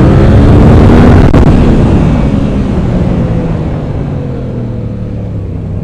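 Yamaha FZ-07's parallel-twin engine running under way, with wind rush, heard through a mic inside the rider's helmet. It is loud at first; from about a second and a half in, the engine note slowly drops and quietens.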